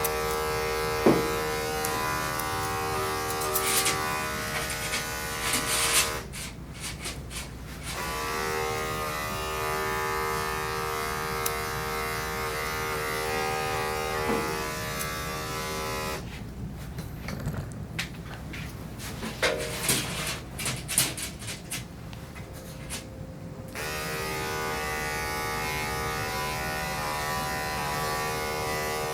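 Electric pet grooming clippers running with a steady motor hum while trimming a dog's face, stopping twice, briefly about six seconds in and for several seconds from about sixteen seconds in, with short sharp clicks while they are off.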